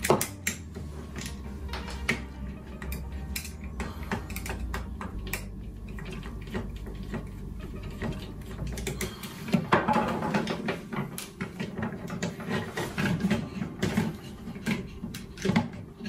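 Clicks, knocks and rattles of hard plastic parts as the turbo brush head of a cordless vacuum cleaner is taken apart by hand, busier from about halfway through. A low steady hum stops about halfway in.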